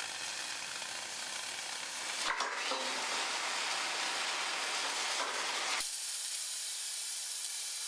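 Oxy-fuel cutting torch on a motorized track carriage hissing and sizzling as its cutting jet burns through a steel I-beam. A click comes about two seconds in, after which the hiss gets louder. Near six seconds the lower part of the sound cuts off abruptly, leaving a thinner, high hiss.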